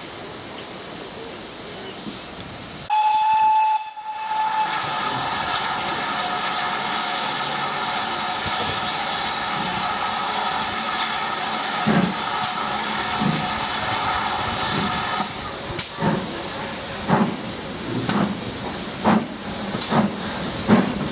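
Steam locomotive departing: a short high whistle, then a long steam whistle of several tones over a steady hiss of steam, followed by the exhaust chuffing in regular beats that come faster as the engine pulls away.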